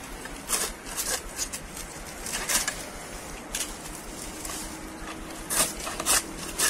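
Dry date-palm fronds crackling and rustling as they are cut and pulled with a hand sickle: a handful of short, sharp snaps and scrapes at uneven intervals.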